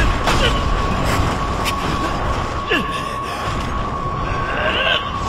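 Fight sound effects of a giant hero grappling with a mechanical robot. There is a continuous low rumble under a steady high hum, with several sharp hits and a falling swish about three seconds in.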